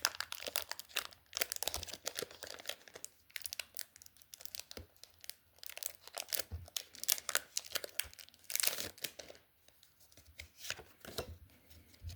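Foil Pokémon booster pack wrapper being torn open and crinkled in the hands, in irregular crackling bursts with a short lull near the end.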